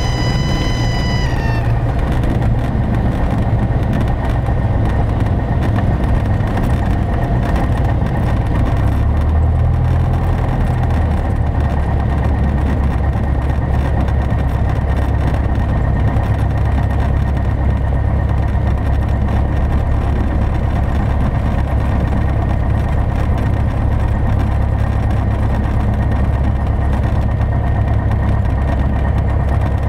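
Cessna 172P's stall warning horn sounding a high steady tone that sags in pitch and fades out about a second in, as the plane settles onto the runway. Under it, the aircraft's four-cylinder Lycoming engine runs at idle through the landing rollout, heard from inside the cabin.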